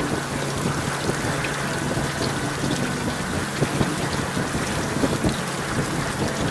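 Heavy rain pelting a helmet-mounted camera's microphone on a moving Honda Gold Wing GL1800, with scattered sharp drop hits. Underneath are a steady rush of wind and road noise and a low, even drone from the bike's flat-six engine.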